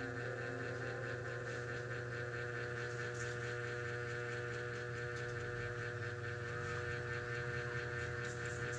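A steady machine hum made of several held tones, unchanging throughout.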